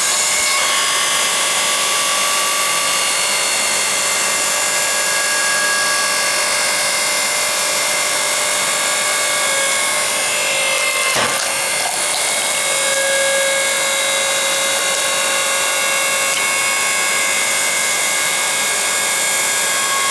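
Electric hydraulic log splitter running under load, its motor and pump giving a steady whine while the ram pushes a hardwood log against the wedge without splitting it. A single sharp knock comes about halfway through. The whine stops just after the end.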